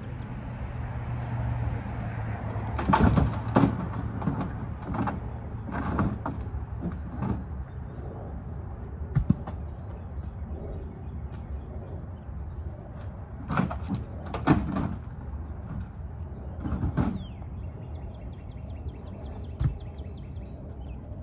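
Heavy cut cherry log rounds thudding onto a pile and knocking against each other as they are unloaded from a pickup truck bed, a string of irregular wooden thumps every few seconds.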